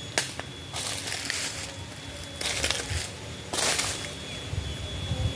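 Footsteps crunching through a thick layer of dry fallen bamboo leaves and twigs, with about four short rustling crunches. A single sharp click comes just after the start.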